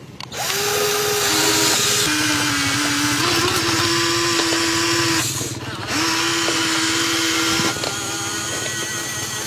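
Small electric motors and gearboxes of a model RC excavator whining as it drives its tracks and works its arm, the pitch stepping up and down. The whine breaks off briefly about five seconds in, then resumes.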